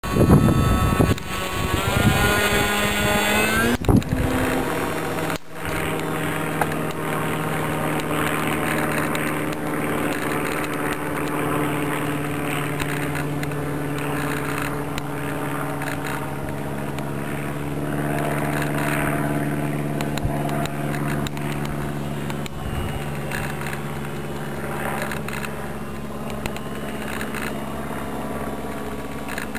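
Electric motor and propeller of a ParkZone T-28 Trojan radio-controlled model plane in flight. A rising whine in the first few seconds, then a steady drone.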